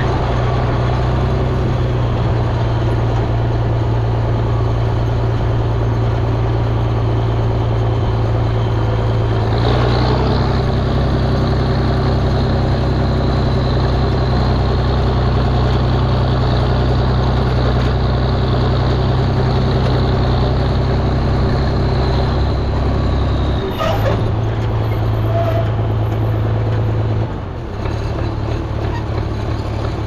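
Farm tractor engine running steadily while driving, heard close from the open driver's seat. Its note shifts about ten seconds in, and again near the end with a brief clunk.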